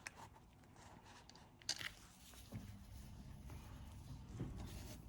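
Faint handling noise on a workbench: a few light taps and clicks, with one sharper click just under two seconds in.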